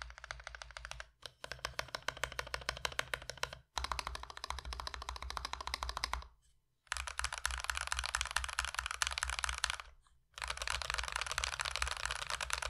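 Fast typing on a mechanical keyboard fitted with Akko CS Starfish linear switches: a dense run of poppy key clacks with no spring ping, in spells broken by a few short pauses.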